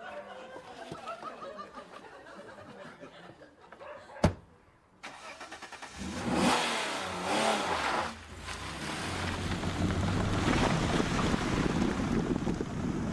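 A car door slams once about four seconds in. About two seconds later the engine of a silver Alfa Romeo Spider roadster starts and revs, then settles into a steady run as the car drives away.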